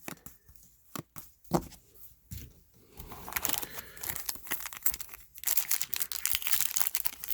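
Foil trading-card pack wrapper being torn open and crinkled. A few sharp handling clicks come first, then a dense crackling from about three seconds in.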